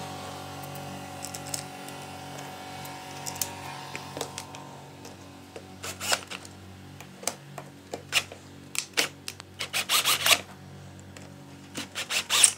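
Cordless drill-driver driving small screws in short bursts, a series of quick whirs and clicks starting about halfway through.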